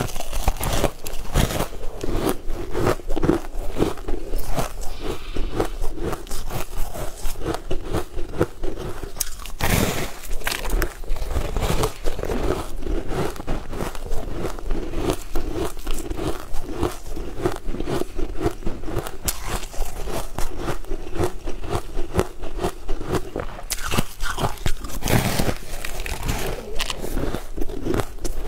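Close-miked eating: a person biting into and chewing a soft cake with a flaky, crumbly coating, with constant fine crackling, crunching and mouth smacks.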